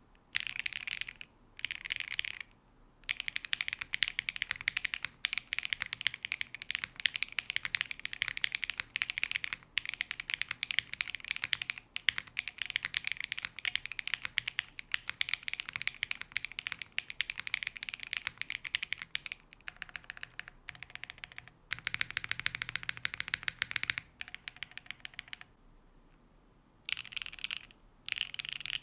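Fast typing on a Qi65 R2 prototype mechanical keyboard with a carbon-fibre plate and Poron gasket mount: a dense run of crisp key clacks, broken by a few short pauses and one longer pause a few seconds before the end.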